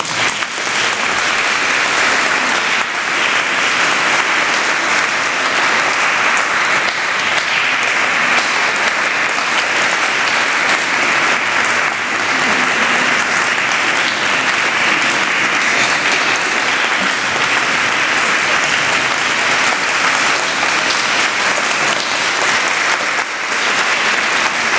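Audience applauding steadily, one long unbroken round of clapping.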